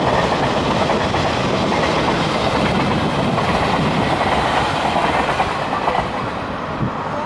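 Electric-locomotive-hauled passenger train running past close by, its wheels clattering over the rails, fading near the end.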